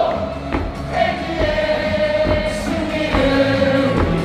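Baseball crowd singing a cheer song in unison over amplified stadium music, with long held notes and a drum beat underneath.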